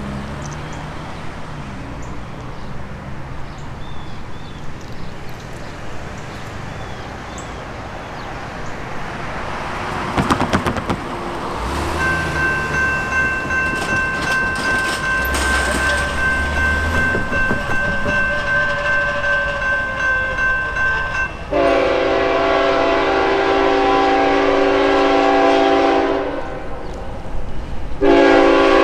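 Railroad crossing bell starts ringing about twelve seconds in, with a steady pulsing beat. Then the GE ET44AC locomotive's horn sounds a long blast and, after a short break, another blast near the end, the warning for the grade crossing.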